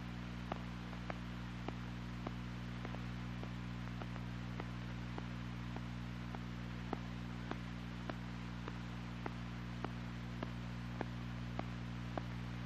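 Steady mains-type hum and hiss from an old film soundtrack, with faint regular ticks nearly twice a second.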